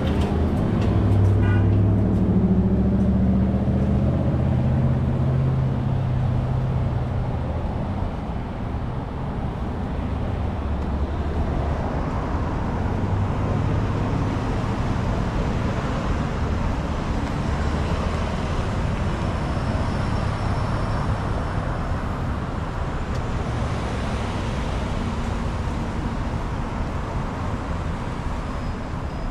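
Road traffic: cars driving past on a nearby road. A close vehicle engine's low hum is loudest for the first several seconds and fades about seven seconds in, leaving a steady wash of tyre and engine noise.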